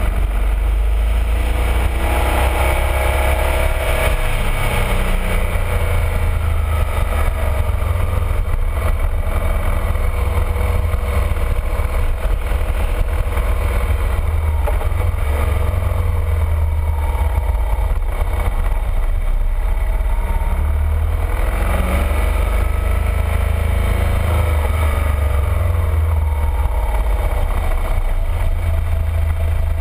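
BMW R1200RT's flat-twin engine running on the move, its pitch rising and falling with the throttle through the bends. A heavy, steady wind rumble buffets the microphone underneath.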